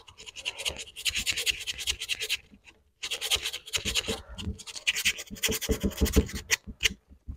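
80-grit sandpaper rubbed by hand in quick back-and-forth strokes over hardened epoxy filler on a classic GM steering wheel rim, levelling the filler down. The strokes break off briefly about two and a half seconds in, then stop just before the end.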